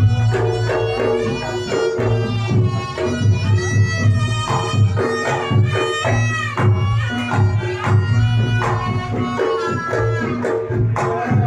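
Reog Ponorogo gamelan music. A slompret shawm plays a wavering, bending melody over kendang drum strokes and steady kenong and gong-like tones, in a continuous loud passage.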